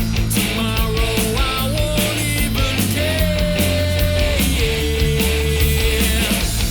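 Background rock music: distorted guitars over bass and drums, with a held lead melody line.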